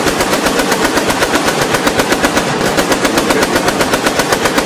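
Sustained automatic gunfire: a rapid, even stream of shots without a break.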